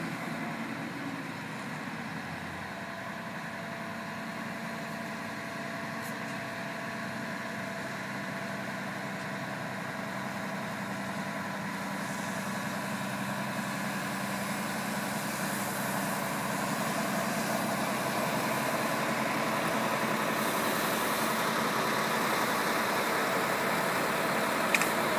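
Diesel engine of an Iveco concrete pump truck running steadily at a constant speed, with a steady hum that grows gradually louder over the second half.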